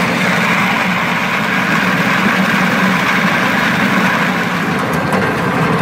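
McCormick-Deering 10-inch Type D feed grinder running steadily under load, grinding shelled corn into coarse meal: a loud, even mechanical grinding noise.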